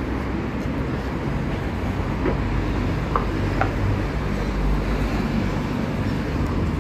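Steady city street traffic: cars and buses running along a wide road make a continuous low rumble, with a few faint brief tones.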